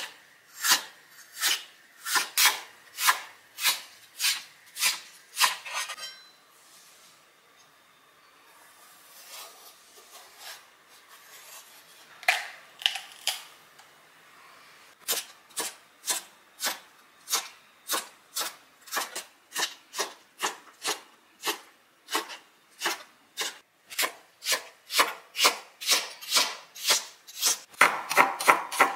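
Chef's knife slicing vegetables on a cutting board: a steady run of crisp knife strokes through a red onion, a quieter stretch of handling in the middle, then faster slicing at about two strokes a second, through garlic cloves near the end.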